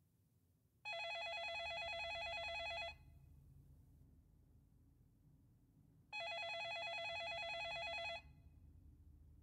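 Telephone ringing twice, each ring an electronic warbling trill lasting about two seconds, the second ring starting about five seconds after the first.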